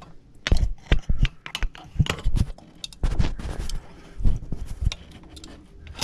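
A screwdriver prying at the plastic clip that holds the overload relay and start capacitor unit on a GE refrigerator's compressor: irregular clicks, knocks and scraping of metal on plastic.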